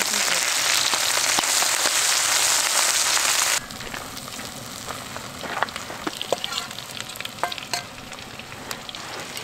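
Food sizzling loudly on a hot cast-iron griddle over a gas burner. About three and a half seconds in, it cuts to a quieter sizzle with light clinks and scrapes of utensils on the pan as more food is stirred in.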